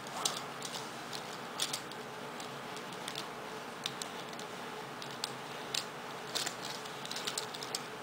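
Irregular small plastic clicks and snaps from the jointed parts of a small Optimus Prime Transformers toy being folded by hand into its truck form, over a steady low hiss.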